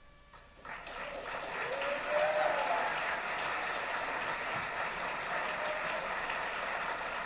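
Audience applause breaks out about a second in after a brief hush and carries on steadily, with a voice cheering over it about two seconds in.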